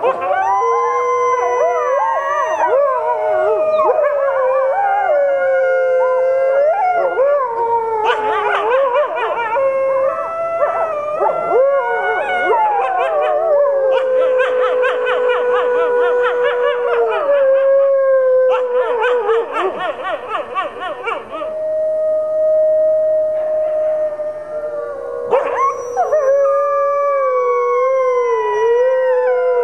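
A pack of red wolves howling in chorus with other wolves: several long, overlapping howls at different pitches, some sliding up and down. Through the middle stretch the chorus breaks into rapid wavering yips.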